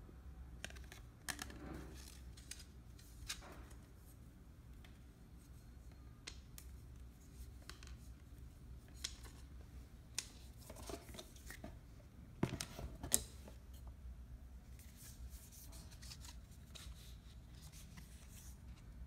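Hands handling a Cult Gaia Ark bamboo handbag, its hang tag and a paper card: scattered light clicks, taps and rustles, loudest about twelve to thirteen seconds in.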